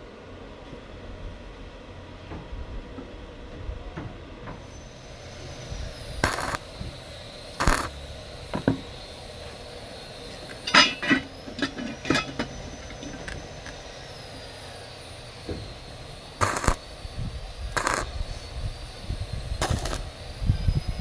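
Metal clanks and clinks, about a dozen separate sharp strikes in irregular groups, over a faint steady background hiss.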